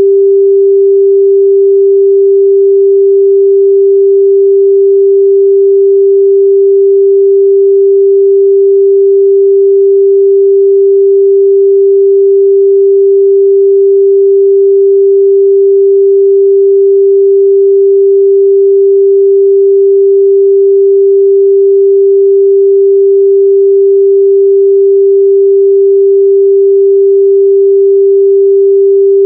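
A steady, unbroken 394 Hz sine-wave test tone: one pure midrange pitch held at constant loudness.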